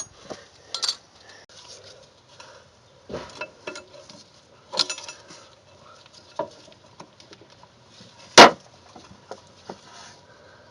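Metal brake hardware of a rear drum brake (shoes, springs and tools) clinking and knocking as it is worked into place by hand, with one much louder sharp metallic clack about eight seconds in.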